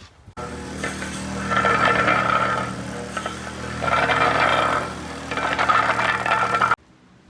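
A small engine-driven machine running steadily, surging three times into louder, rougher spells with a whine over the top; it starts and cuts off abruptly.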